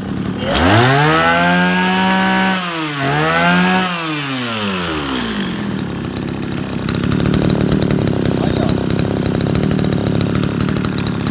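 A Zenoah Komatsu G2K 26cc two-stroke brush cutter engine revved hard twice: its pitch climbs steeply about half a second in, dips briefly, climbs again, then drops back. For the rest it runs at a steady, rattly idle.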